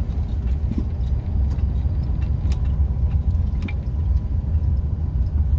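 Steady low rumble of road and engine noise inside a moving 1997 Dodge Roadtrek camper van, with a few light clicks and rattles from loose things in the cabin.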